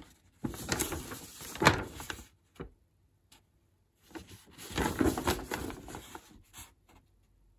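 Handling noise as a network switch is picked up and moved about: rustling and rubbing in two stretches, with a sharp knock about a second and a half in.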